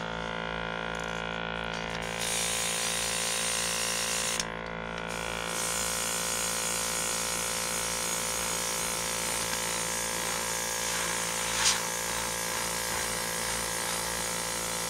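Small airbrush compressor running with a steady hum. From about two seconds in, the hiss of the airbrush spraying orange paint joins it, with a short break a little after four seconds. There is one brief sharp click near the end.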